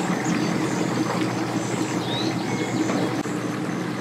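Pickup truck engine idling steadily, with a short bird chirp about two seconds in.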